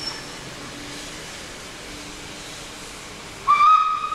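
Narrow-gauge steam tank locomotive: a steady hiss of steam, then its whistle starts suddenly about three and a half seconds in and holds one loud, steady note.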